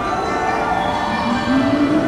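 Machinery whine from a stationary 413 series electric train, made of several steady tones. The main tone drops away, then glides back up in pitch over about a second near the end, like an auxiliary machine spinning back up.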